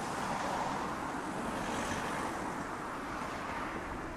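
Steady rushing roar with no separate bangs or impacts, cutting off abruptly near the end.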